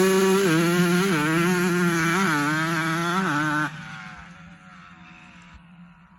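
KTM 200 XC two-stroke single-cylinder dirt bike engine running at steady revs, then given several short throttle blips that push the pitch up and down. About three and a half seconds in the sound drops off sharply and fades away.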